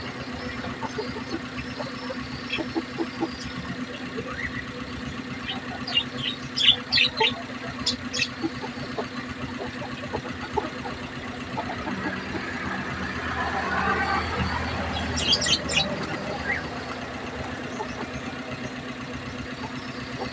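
Lovebirds giving short, sharp, high-pitched chirps, in clusters about six seconds in and again about fifteen seconds in, over a steady low hum.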